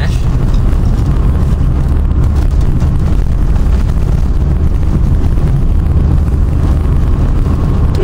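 Engine and road noise inside the cabin of a 1984 Mazda 626 driving along, a steady low rumble.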